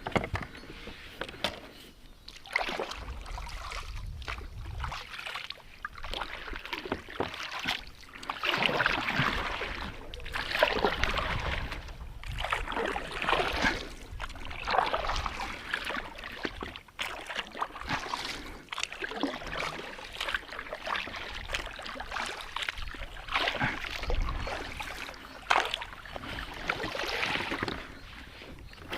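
Water sloshing and swishing in repeated strokes, one swell about every two to three seconds.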